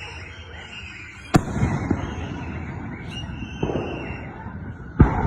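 Z121 fireworks going off. There is a sharp bang about a second in, followed by crackling, then smaller pops a couple of seconds later and another loud bang near the end.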